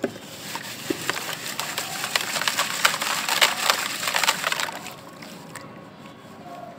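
A crumbly grey gritty block being crushed and rubbed apart by hand over a bowl of water: dense gritty crackling and crunching for about four seconds, easing off near the end.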